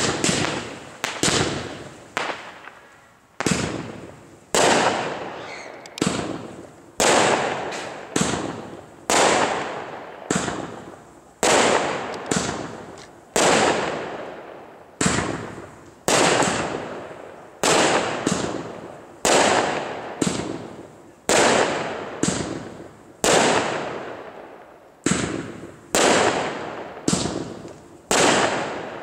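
Category 2 consumer firework cake firing shot after shot: a sharp bang roughly once a second, each dying away before the next, as the small shells burst into coloured stars overhead.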